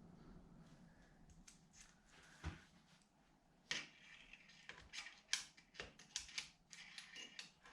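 Faint, scattered light clicks and taps of tools and small metal parts being handled, growing more frequent from about halfway through.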